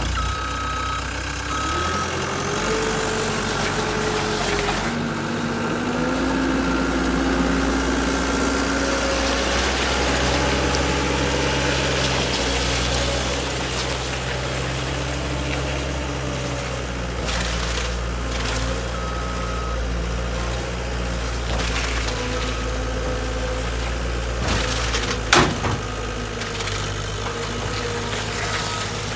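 Skid steer engine running and working, its pitch rising and falling, with a sharp bang about 25 seconds in.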